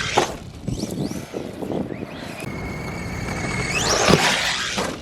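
ARRMA Senton 3S RC truck's brushless electric motor whining as the truck drives. The pitch rises and falls briefly about half a second in, then holds steady before climbing sharply at full throttle about four seconds in and dropping away.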